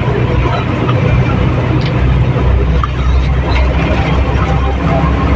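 Bus engine and road noise heard from inside the cabin: a steady, loud low rumble with a few faint clicks and rattles.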